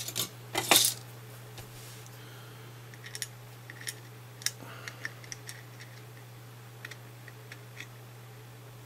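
Tweezers handling a small power FET against the circuit board: a couple of louder knocks in the first second, then a scatter of light, sharp ticks as the tweezer tips and the transistor tap the board. A steady low hum runs underneath.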